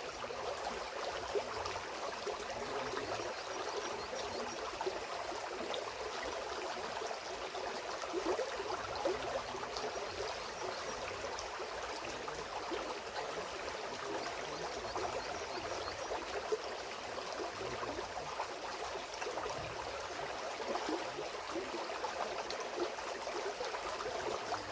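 Waterfall water running and splashing steadily, with many small splashes all through.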